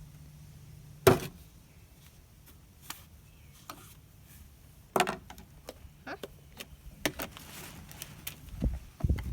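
A series of knocks and clicks from things being handled and set down: a sharp knock about a second in, another at about five seconds, lighter taps after that, and low thumps near the end.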